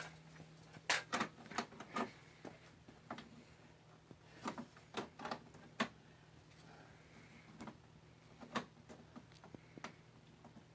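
Irregular clicks and knocks of hands handling a small red toy piece and a spring clamp against a wooden board, over a faint steady hum.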